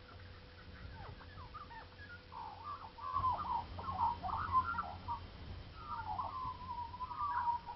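Several birds calling, a flurry of short chirping calls that grows louder a couple of seconds in, with one steady drawn-out call near the end.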